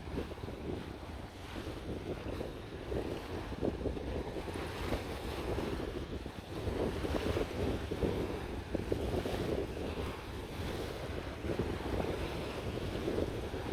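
Sea waves washing in and out, surging every few seconds, with wind rumbling on the microphone.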